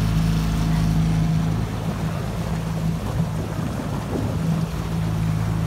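Small Mercury tiller outboard motor running at steady speed, pushing a small boat across the water, with a steady hum over rushing water and wind. The engine hum drops back a little about one and a half seconds in and comes back up near the end.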